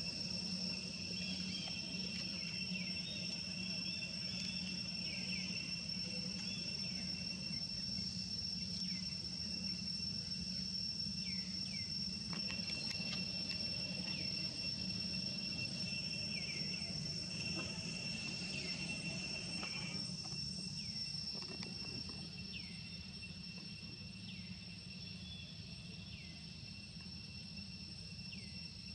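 Steady, high-pitched insect chorus with a low hum beneath it, and faint short chirps now and then; it eases off slightly in the last part.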